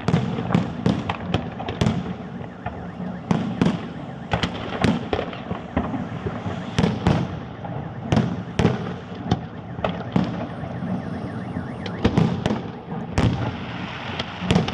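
Fireworks display: a rapid, irregular string of sharp bangs from bursting shells, several a second at times, over a constant background din.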